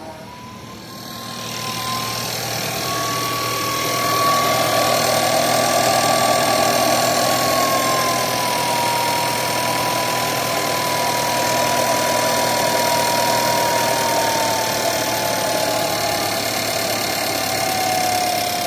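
An engine running with a thin, steady whistling whine near 1 kHz over the engine noise, a howl/whistle. It grows louder over the first few seconds, rises slightly in pitch, then slowly drops in pitch toward the end.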